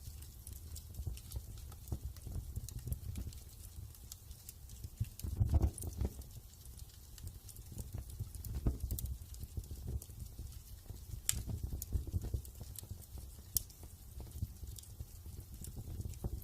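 Wood fire crackling in a fireplace: irregular sharp snaps and pops over a low, steady rumble of the flames, with one louder pop about five and a half seconds in.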